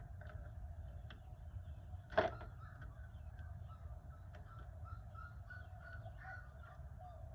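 Faint bird calls over a low steady rumble, with one sharp click about two seconds in.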